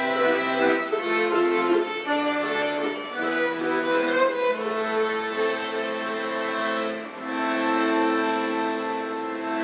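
Small acoustic ensemble of accordion, violin and mandolin playing Argentine tango music, closing on a long held chord over the last two seconds or so.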